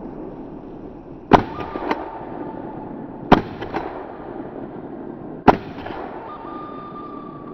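Three shotgun shots about two seconds apart, each followed by a fainter crack about half a second later.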